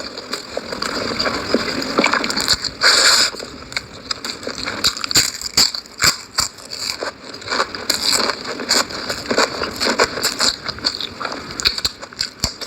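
Close-miked eating of instant noodles: irregular slurps, chewing and wet mouth clicks in quick succession.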